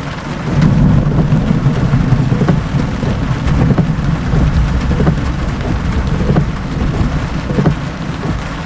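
Long rolling rumble of thunder from a multiple cloud-to-ground lightning strike, swelling up about half a second in, under heavy rain pattering steadily.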